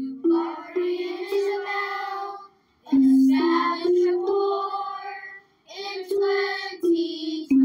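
A child singing a short tune in three phrases, each climbing in steps from a low note, with brief pauses between them.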